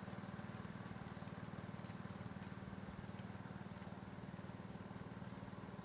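A small engine running steadily at an even speed, with a fast, regular low putter, like a small boat motor.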